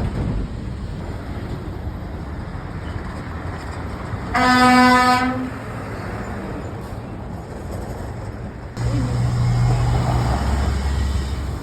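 Street traffic with one truck air-horn blast, a single steady tone lasting about a second, roughly four seconds in. Near the end a heavy engine's low rumble comes in suddenly and stays.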